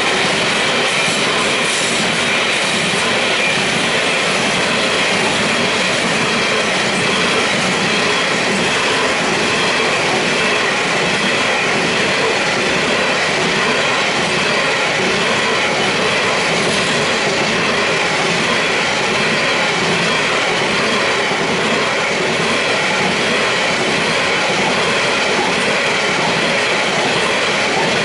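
Loaded coal hopper wagons of a long freight train rolling past: steel wheels running on the rails in a steady, even rumble and rattle, with a thin high wheel squeal held throughout.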